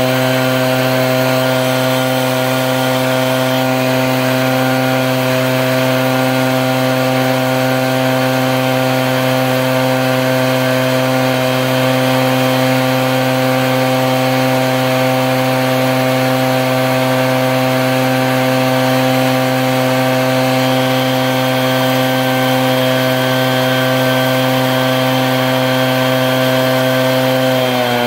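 Echo PB-8010 backpack leaf blower's two-stroke engine running steadily at full throttle, with the rush of air from its fan. Right at the end the engine note drops as the throttle is let off.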